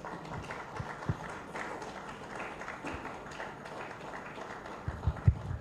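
Audience applauding, a steady patter of clapping, with a few low thumps near the end.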